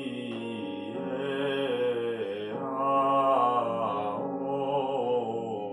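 A man singing a vocal warm-up exercise in a low register, holding vowels that step and glide from note to note.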